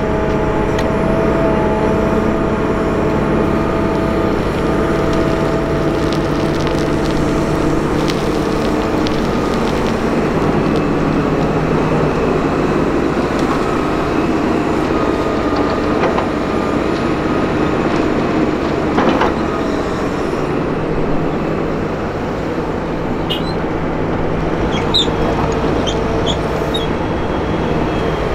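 Hitachi Zaxis 320 excavator working: its diesel engine runs steadily under hydraulic load, the pitch shifting as it digs and swings to dump soil into a dump trailer, with a tractor engine running alongside. A few short, high metallic squeaks come near the end.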